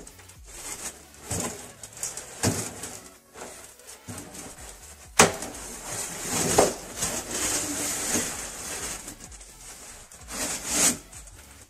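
Wire mesh being handled and pushed into place: rubbing and scraping, with scattered knocks and one sharp knock, the loudest sound, about five seconds in.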